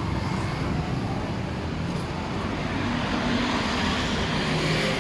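Street traffic: motor vehicle engines running past in a continuous rumble that swells a little in the second half.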